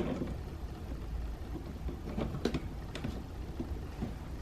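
A few faint plastic clicks and handling noises as the wiring connector is pressed and pulled off the car door's mirror switch panel, over a low steady hum.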